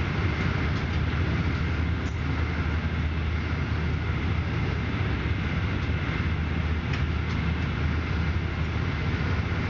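Passenger train running at speed, heard from inside the carriage: a steady low rumble of wheels and running gear on the track, with a faint steady high tone over it and a few faint ticks.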